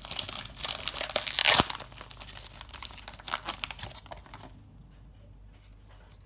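Foil wrapper of a Pokémon booster pack being torn open and crinkled in the hands. It gives dense crackling for about two seconds, then fainter rustles that die away after about four seconds.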